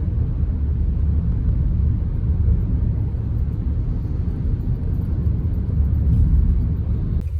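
Steady low rumble of a moving vehicle, with little high-pitched sound over it.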